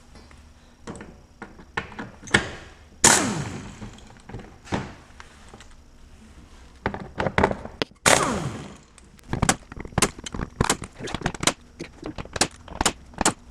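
Cordless impact gun backing out a row of small wheel-well liner screws: short bursts of rapid hammering, and twice a longer spin whose motor whine falls away as it winds down.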